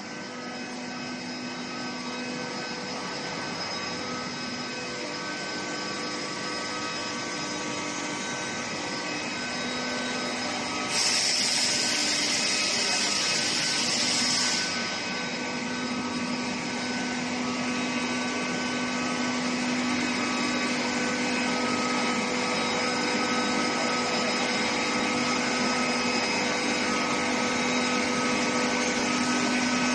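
Steady industrial hum of a steel pipe induction heat-treatment line running, with several steady tones. A loud hiss starts about a third of the way through and stops after about four seconds.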